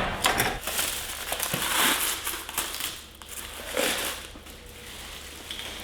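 Packing material crinkling and rustling as kitchenware is unwrapped, in irregular handling noises, busiest in the first couple of seconds with another burst near the middle, then fainter.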